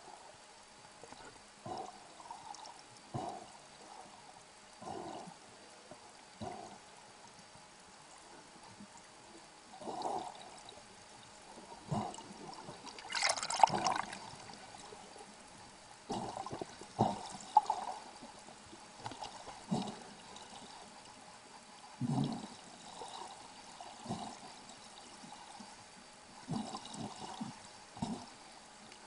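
Underwater water noise heard through the camera: irregular gurgles and sloshes of water and bubbles near the surface, with a louder, longer rush of bubbles about 13 seconds in.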